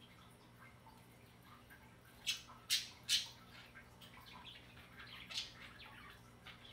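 Sparrows chirping: three loud, short, high chirps in quick succession about two to three seconds in, another about five seconds in, and fainter chirps scattered around them.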